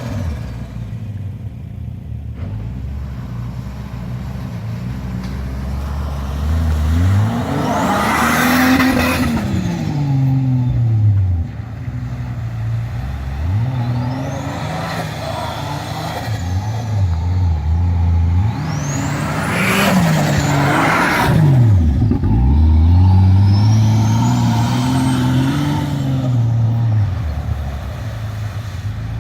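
Turbocharged Nissan TB42 straight-six engine revving up and falling back several times, with a high turbo whistle rising as it spools. Twice, near the top of a rev, there is a loud rushing burst.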